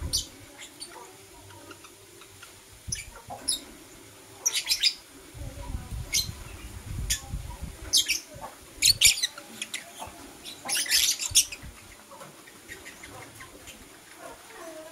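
Pet lovebirds giving short, sharp, high-pitched chirps in scattered bursts, with the busiest flurry about eleven seconds in. A brief low rumble comes about midway.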